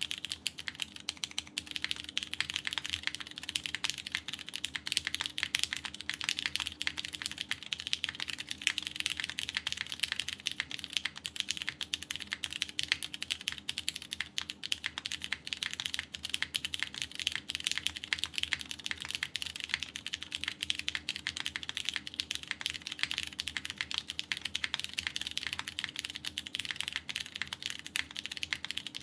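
Continuous fast typing on a KBDfans Tofu TKL mechanical keyboard with lubed Cherry MX Purple tactile switches, a polycarbonate plate and GMK keycaps, in PCB gasket mount. The keystrokes follow one another without a pause.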